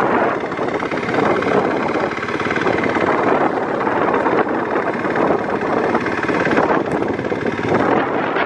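Small Kawasaki youth dirt bike engine idling steadily, a rapid, even putter.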